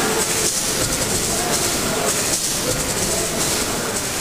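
Bratch triple-expansion steam pumping engine running: a steady mechanical clatter of its moving rods and valve gear with a hiss of steam.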